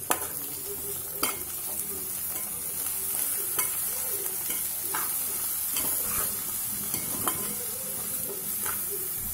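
Potato and brinjal pieces sizzling as they fry in oil in a metal pot, stirred with a metal spatula that scrapes and knocks against the pot about once a second.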